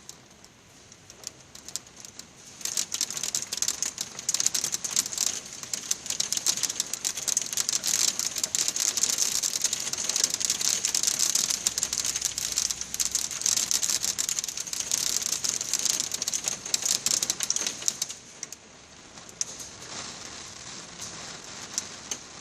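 Hail and rain pelting down on a hard surface: a dense, rapid clatter of hailstone strikes that builds sharply about three seconds in and eases off near the end.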